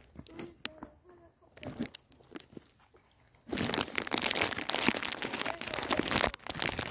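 Crisp packet crinkling and crackling right at the microphone, starting suddenly about halfway in after a quiet first half.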